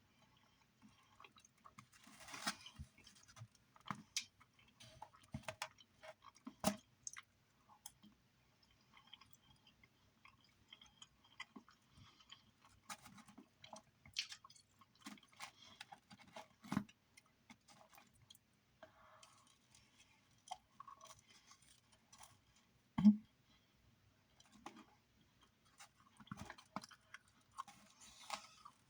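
A person chewing food close to the microphone, with scattered small crunches and clicks and one sharper knock about 23 seconds in.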